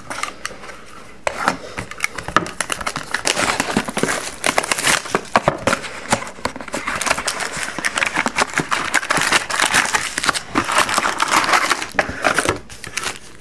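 Plastic wrapping crinkling and tearing as sealed trading card boxes are opened and their packs handled, a dense crackling with many small clicks that starts about a second in.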